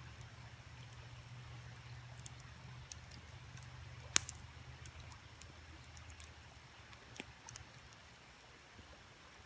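Wood campfire crackling, with scattered small pops and one sharp, loud pop about four seconds in, over the faint steady rush of a creek. A low rumble underneath fades out about halfway through.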